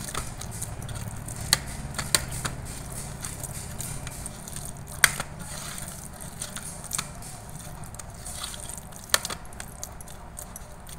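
Soft, wet squishing of a hand kneading and mashing boiled pumpkin and gram-flour dough in a steel bowl, with sharp clinks every second or two as the bangles and ring knock against the steel. A steady low hum sits underneath.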